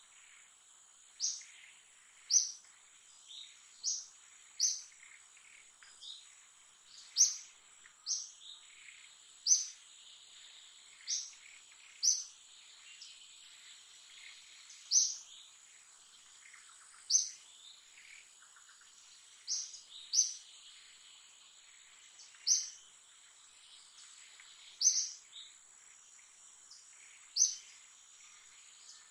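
A bird repeating a short, high chirp every second or two, over a steady high-pitched insect drone.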